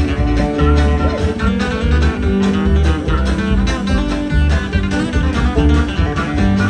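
Bluegrass string band playing an instrumental break, guitar and banjo picking over a steady bass line.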